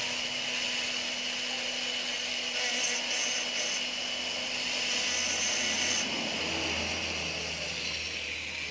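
Small motor-driven grinding disc running with a steady high whine as it grinds the steel wire of a handmade fishing hook; the grinding stops about six seconds in.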